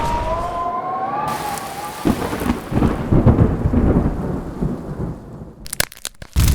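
Thunder sound effect: a low rumble that swells and fades over several seconds with a rain-like hiss, a wavering tone in the first second, and a few sharp crackles near the end.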